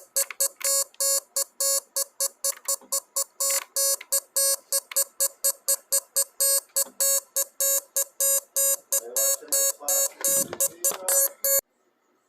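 Morse code beeps: an electronic tone of one steady pitch keyed on and off in quick dots and dashes, about four or five a second, that cuts off abruptly near the end.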